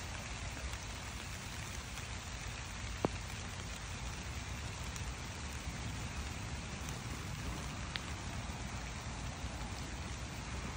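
Steady rain falling on garden plants and into the water of a stone birdbath, an even hiss with a few louder single drops, the sharpest about three seconds in.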